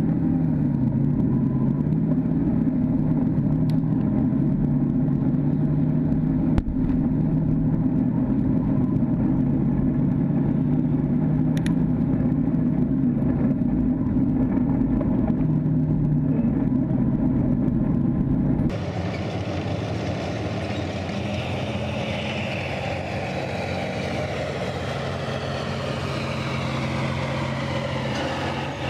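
T-72 tank's V12 diesel engine running hard, heard from on the tank, its note wavering up and down. About two-thirds of the way through it cuts abruptly to the tank heard from outside as it drives: a quieter engine, with a high screech from the tracks and running gear that rises and falls.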